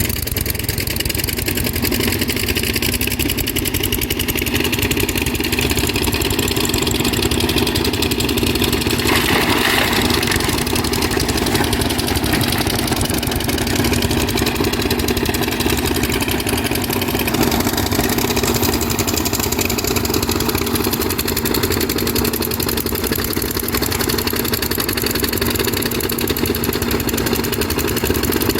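Kobelco SK200 excavator's diesel engine running at a steady hum. A brief rush of higher-pitched noise comes about nine seconds in.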